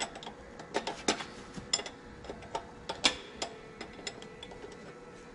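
Hand ratchet wrench clicking in irregular short runs as the fuel filter housing bolts are run down and tightened, with one louder click about three seconds in.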